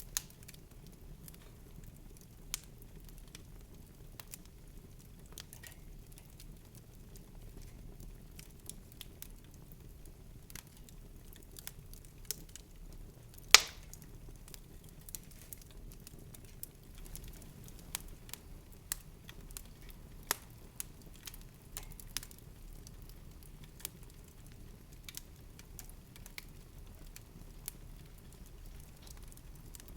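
Scattered soft crackles and pops over a low steady background hum, with one much louder pop about halfway through.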